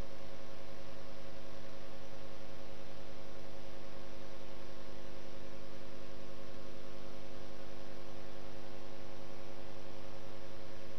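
Steady electrical hum with several fixed tones over an even hiss, unchanging throughout.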